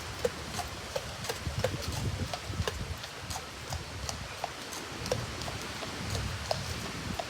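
A horse's hooves clip-clopping on hard ground in irregular steps, a few sharp knocks a second.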